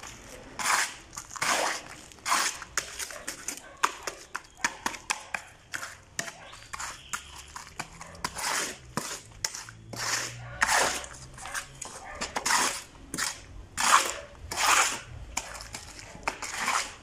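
Metal shovel scraping and slapping across the top of wet cement mix in a wooden block mold to level it off. Repeated short strokes, about one or two a second.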